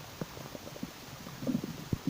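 Human stomach and bowel gurgling: a string of small irregular pops and clicks, with a short bubbling gurgle about three-quarters of the way through.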